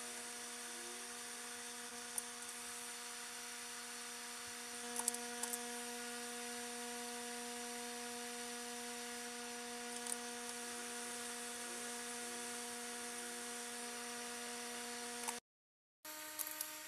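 Steady electric hum with a stack of evenly spaced overtones. It cuts out for about half a second near the end and returns at a slightly higher pitch. A few faint light clicks sound over it.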